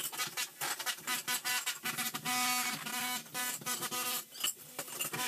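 Electric demolition hammer chiseling up a tiled floor: rapid, uneven hammering with the crack and clatter of breaking tile.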